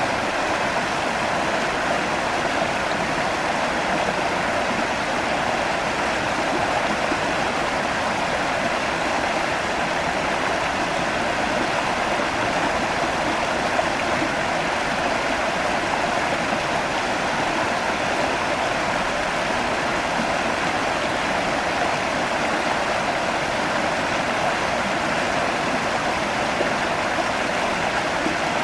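A shallow rocky creek running over stones and small riffles: a steady rush of water with no breaks.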